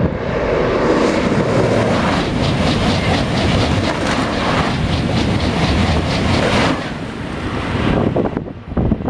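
Thalys high-speed train passing below at speed: a loud rush of wheels on rail and air that builds about half a second in and holds with a fast pulsing as the carriages go by. It falls away about seven seconds in, leaving wind on the microphone.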